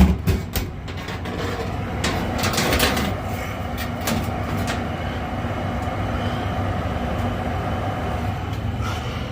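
Lennox gas furnace lit and running: a steady rush from the burners and the inducer motor, with a low hum. It has just fired up after a bad pressure switch kept it from heating. Several clicks and knocks come in the first few seconds.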